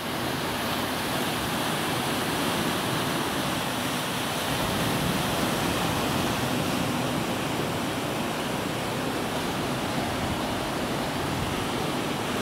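Sea surf breaking and washing steadily against boulders, a continuous rushing noise with no pauses.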